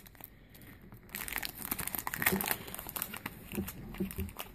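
Foil wrapper of a Pokémon XY base set booster pack crinkling as hands work at it, starting about a second in.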